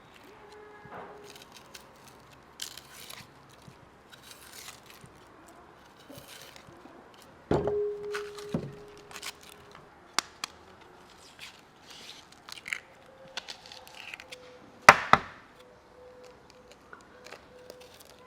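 Scattered knocks and clicks, with a loud knock a little before halfway that rings briefly at one pitch, a second knock just after, and a loud double knock later on.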